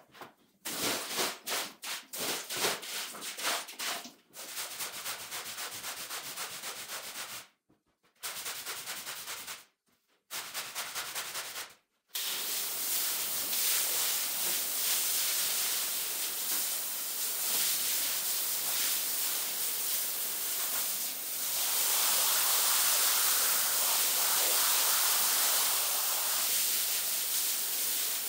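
Sped-up carpet washing: quick rubbing strokes for the first few seconds, then the steady hiss of a hose spray lance wetting a dirty rug, louder in the last several seconds.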